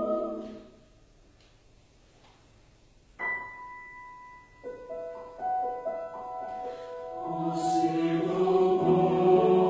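A mixed choir's held chord fades out in the first second, leaving near silence. About three seconds in, a piano plays single notes, and the choir comes back in with a full sustained chord near the end.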